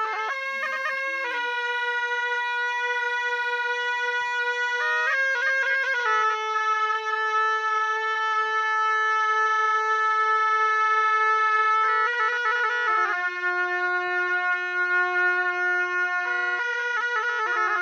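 A pair of gyaling, Tibetan double-reed ritual oboes, played in unison as one reedy melody. They hold long notes, with quick ornamented turns between them every few seconds. The line drops to a lower held note about two thirds of the way through and climbs back near the end.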